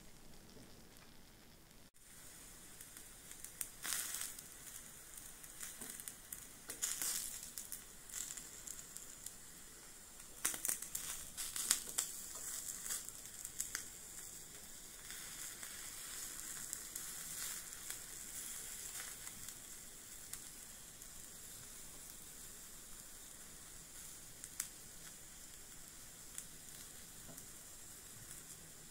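Small pieces of steak sizzling on a miniature charcoal grill. Crackling spells come in the first half, then a steadier faint sizzle.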